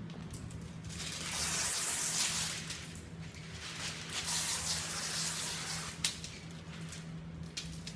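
Water hissing out of a pressurised tank sprayer's hose nozzle onto windshield glass in two long sprays, with a sharp click about six seconds in.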